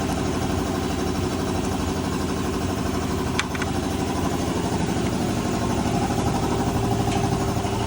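An engine idling steadily, with a couple of light metallic clicks about three and a half seconds in.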